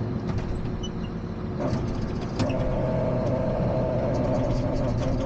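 Allis-Chalmers 8030 tractor's diesel engine running while the hydraulics are worked. About two seconds in there is a knock, and a steady higher whine joins the engine: the hydraulic system working with air still in the lines after the filter change.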